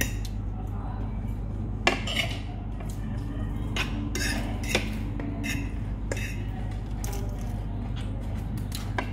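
Metal forks and knives clinking and scraping against plates while people eat, in irregular clicks with the sharpest about two seconds in, over a steady low hum.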